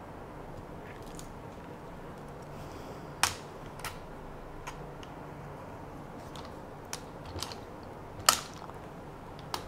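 Scattered sharp clicks and light knocks from a Moza AirCross gimbal and camera being handled and fitted together, the two loudest about three and eight seconds in, over a faint steady room hum.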